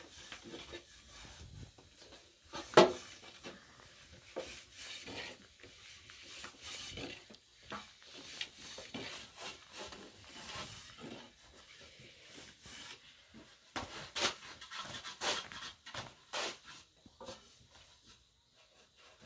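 Hand-rolling flatbread dough: a long thin wooden rolling pin knocking and rolling on a low wooden board, with hands rubbing and scraping in flour, as scattered soft knocks and scrapes. One sharp knock stands out about three seconds in, and the knocks come thicker a little past the middle.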